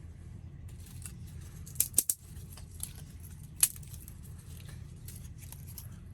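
Sharp clicks and light rustling as a wood stove is handled to relight a dead fire: a quick pair of clicks about two seconds in and a single louder click a little after the middle, over a steady low hum.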